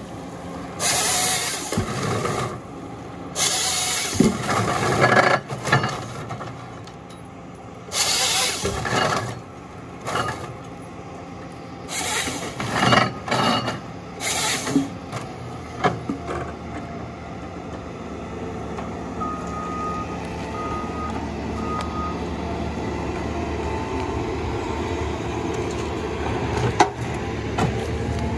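John Deere 1270G harvester working a stem: its diesel engine running steadily under repeated loud bursts of one to two seconds as the harvester head feeds and saws the stem into logs, several times in the first fifteen seconds. After that the engine runs more evenly, with three short beeps about twenty seconds in.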